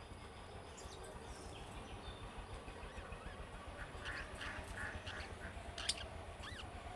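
Budgerigars chirping and chattering in short calls, sparse at first and coming thicker from about four seconds in, with one sharp click near the end.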